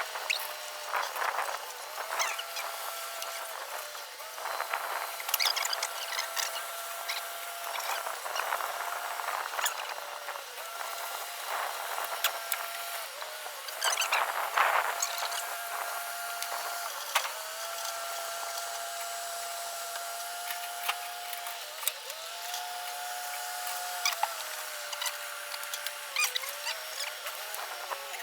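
Komatsu PC-200 excavator running, heard as a steady whine whose pitch steps up and down several times as the revs or load change, with scattered clanks and knocks.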